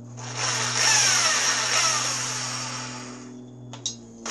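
Handheld electric drill running with a small bit, spotting a tiny mark into a VW air-cooled engine's cylinder; its motor whine sinks in pitch as it slows and fades, followed by a short click near the end.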